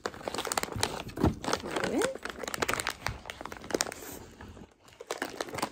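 Crinkling of a plastic dog-treat bag as treats are pulled out, a quick irregular run of crackles and crunches.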